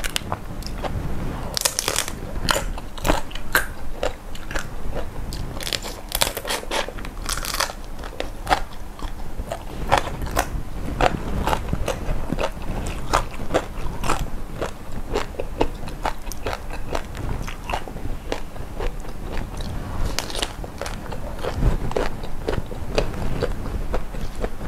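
A person biting and chewing crunchy food close to the microphone. Irregular crisp crunches and crackles run all through, with heavier bursts of crunching about two seconds in, again around six to eight seconds, and near twenty seconds.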